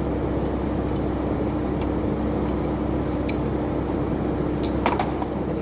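Steady machine hum with a constant low tone, and a few sharp metallic clicks near the end.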